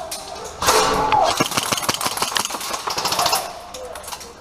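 Airsoft guns firing in rapid strings of sharp clicks. The fire starts about half a second in, is thickest until about three and a half seconds, and thins out near the end.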